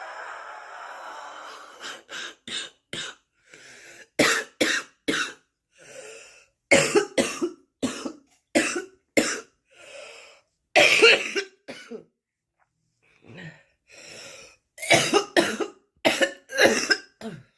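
A smoker's cough: a person coughing in repeated fits of two to four short coughs, with breaths drawn in between the fits. It opens with a long breath out.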